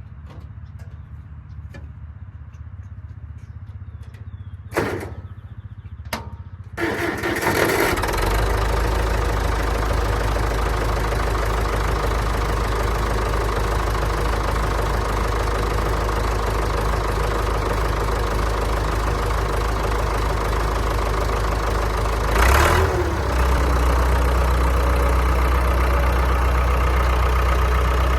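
Massey Ferguson Super 90 tractor engine started about seven seconds in, catching at once and then running steadily. There are a couple of clicks before the start, and about two-thirds of the way through a brief clatter as the engine note changes.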